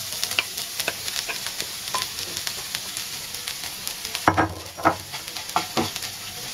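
Torn bread pieces tipped into a nonstick pan of hot oil and fried shallots, then stirred with a wooden spatula: a steady sizzle with scraping. A few louder knocks come about four to five seconds in.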